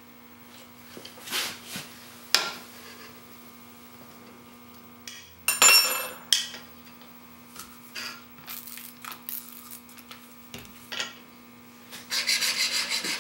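A chisel clamped in a sharpening jig is handled and set down, with a few light clicks and a loud metallic clink about five and a half seconds in. Near the end, quick back-and-forth strokes of the chisel's steel rubbing on an extra-coarse diamond sharpening stone.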